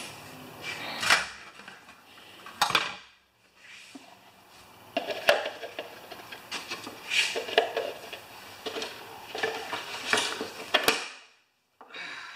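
Metal hand tools clinking and scraping against a lawn mower while the oil drain plug is worked out: a series of short, irregular metallic clinks and rattles.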